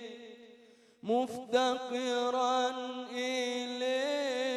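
A male Islamic chanter (mubtahil) singing an unaccompanied ibtihal supplication in Arabic. A held note dies away, then about a second in he starts a new phrase on the word "muftaqiran" with long, ornamented, wavering notes.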